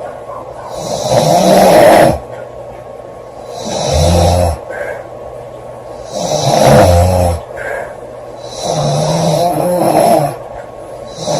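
A woman snoring loudly in her sleep: about four snores at steady intervals of two to three seconds, each lasting about a second, with quieter breathing between them.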